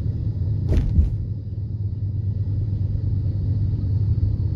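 Car interior noise while driving: a steady low rumble of engine and tyres on the road. A brief sharp knock comes about a second in.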